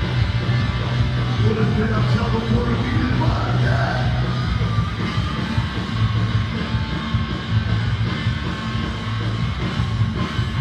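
Live rock band playing loudly, with heavy bass and dense guitars and drums, and a voice singing or yelling over it in the first few seconds.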